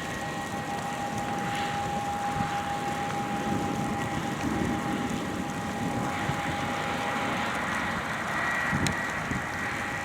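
Heavy harvest machinery at work in a wheat field: big diesel engines running steadily under a constant high whine.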